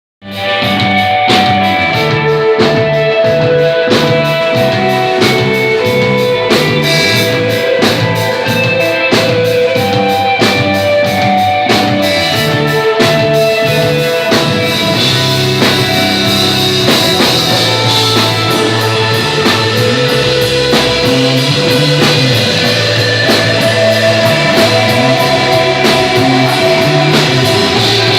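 Rock band playing live: electric guitar lines over bass and a steady drum-kit beat, in instrumental desert-rock style.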